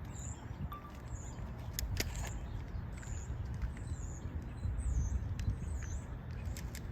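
A small bird chirping over and over, short high calls about once a second, some dipping and rising in pitch, over a steady low rumble.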